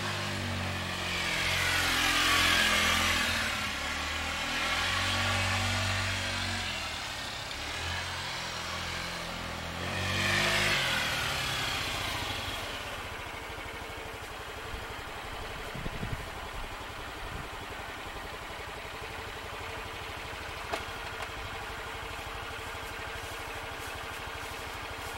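Honda Ruckus scooter's 50cc single-cylinder four-stroke engine revving up and down as it rides past, loudest about two and ten seconds in, then settling to a quieter steady hum once the scooter stops, with a few light knocks. It runs a little boggy, short on power, by the owner's account.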